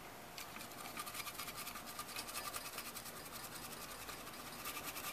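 Small brush scrubbing the copper-trace side of a stereo's circuit board in quick, light, faint strokes, starting about half a second in and growing a little louder near the end.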